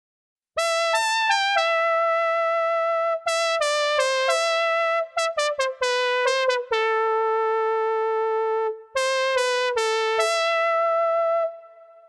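Tone2 Saurus 4 software synthesizer playing its 'Bastioon' brass preset: a single-line melody of short notes with one long held note in the middle. It starts about half a second in and fades out near the end.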